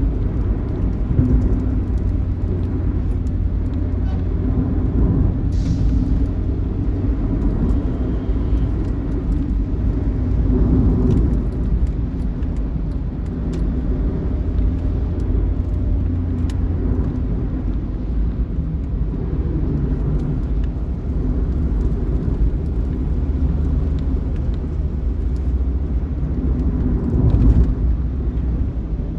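Intercity bus engine running steadily under a continuous low road rumble.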